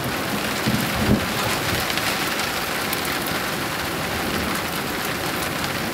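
Steady heavy rain falling on grass and ground during a summer thunderstorm, with a brief low thump about a second in.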